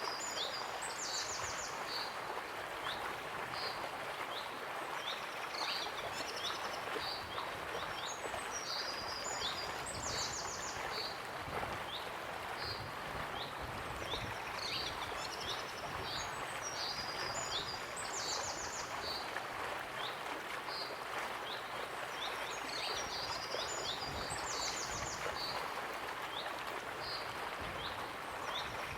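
Waterfall rushing steadily, with birds singing over it: short runs of high chirps and quick trills that come back every four to five seconds.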